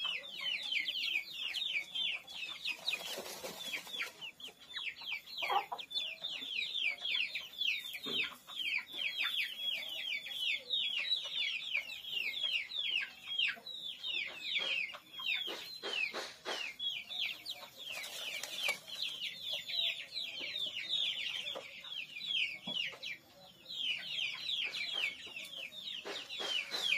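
Young kampung chickens peeping without pause, a fast stream of high, short, downward-sliding cheeps, with a few short knocks and rustles among them.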